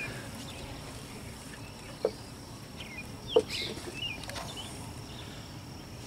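Two sharp knocks of wooden beehive parts, a box and frames being handled with a hive tool, about two seconds and three and a half seconds in, over a quiet outdoor background with short bird chirps.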